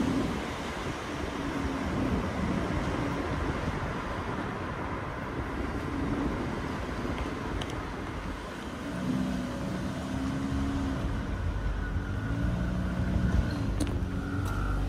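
Car rolling slowly, heard from inside the cabin: a steady hum of engine and tyre noise.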